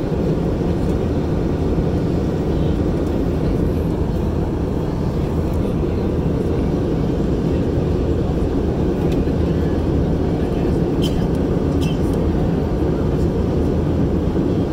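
Steady cabin noise of an Airbus A320 in flight, heard from a window seat: an even rumble of the engines and rushing air, heaviest in the low range, with a couple of faint ticks about eleven and twelve seconds in.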